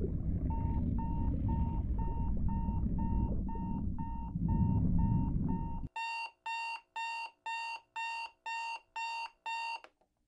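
Electronic control-room alarm beeping about twice a second, signalling a fault on subsea control module K3. At first the beeps sit faintly over a low underwater rumble; about six seconds in the rumble cuts off and the beeps become louder and fuller, stopping just before the end.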